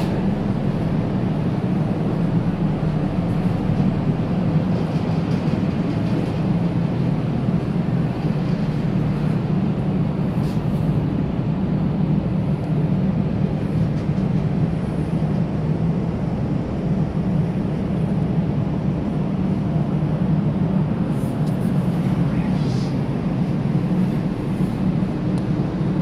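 Car ferry's engines running with a steady low drone while the ship is underway, with an even rushing noise over it.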